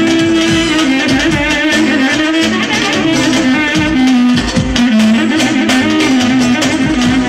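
Live dance music: a saxophone playing a winding, ornamented melody over a steady drum beat.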